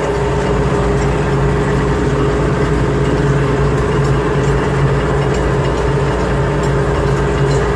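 Palmia industrial meat grinder (mincer) running steadily: a constant, even machine hum with a steady mid-pitched tone over it.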